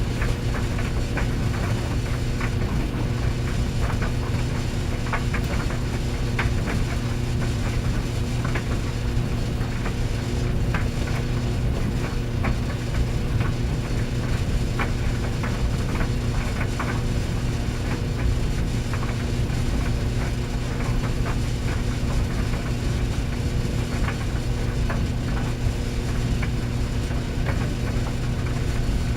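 Clothes dryer running: a steady motor hum over the low rumble of the turning drum, with scattered light clicks.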